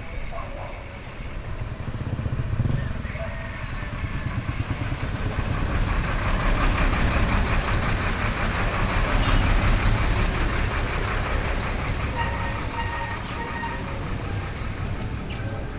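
Riding noise from a bicycle on a concrete highway: wind rumbling on the helmet camera's microphone, with a big truck close alongside, the sound swelling about halfway through as the bike passes it.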